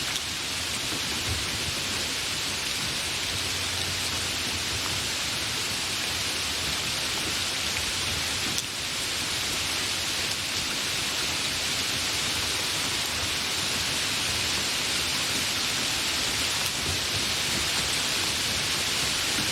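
Steady, fairly heavy rain falling, an even hiss without thunder.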